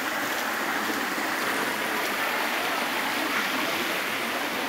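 Shallow hill stream rushing over rock slabs and small cascades: a steady, even rush of water.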